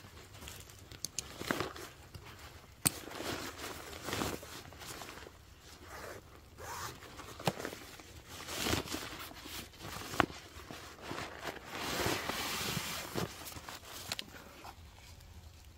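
A nylon military rucksack being opened and unpacked: fabric rustling and swishing, a zipper, and a few sharp clicks, as a tent in its stuff sack is dragged out of the pack.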